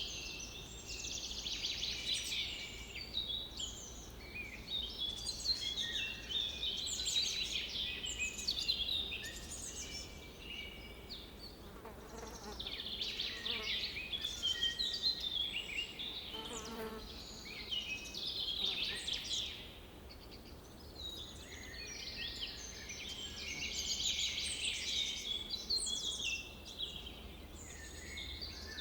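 Several birds singing and chirping at once in a dense, overlapping chorus of high warbling and twittering notes.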